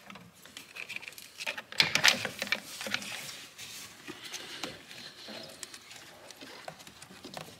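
Clicks, light knocks and rustling of a brake booster vacuum pipe being slid into place under the booster among the engine-bay hoses, loudest about two seconds in.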